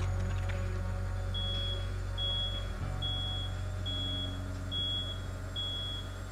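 Washing machine's end-of-program beeper signalling that the wash cycle has finished: a high, steady electronic beep repeating about every 0.8 seconds, six times, starting about a second in. A low steady drone sits underneath.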